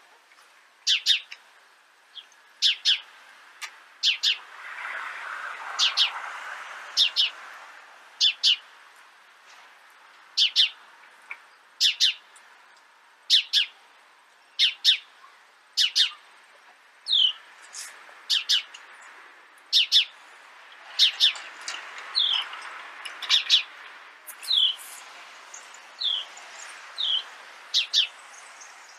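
House sparrows chirping: loud, short cheeps repeated about once a second, often in pairs, some of the later ones sliding downward in pitch. Twice, a softer noisy wash rises beneath the chirps for a few seconds.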